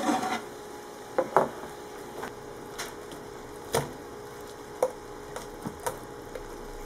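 Metal kitchenware clicking and knocking: an air fryer oven's wire rack set down on a tray with a double knock about a second in, then a knife and fork tapping and scraping on the wire rack while cutting into a roasted chicken drumstick.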